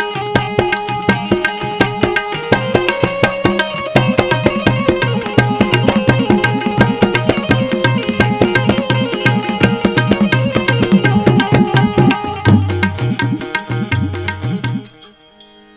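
Live instrumental folk-devotional music: rapid drum strokes under a melody, loud throughout, that stop suddenly near the end and leave only a faint held tone.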